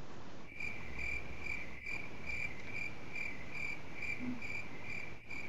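Cricket chirping in a steady rhythm, about two chirps a second, starting about half a second in.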